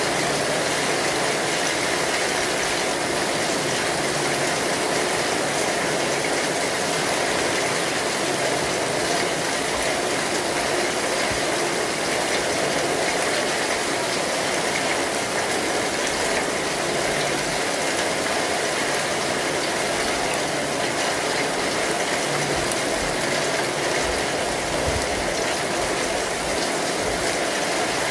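Kinetic sand crunching and crumbling as it is cut, pressed and scooped by hand, a dense, steady crackle.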